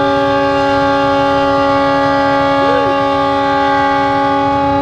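CC206 diesel locomotive's multi-note air horn, heard from inside the cab, sounding one long, steady chord. It is the long warning blast of the Indonesian railway horn signal Semboyan 35.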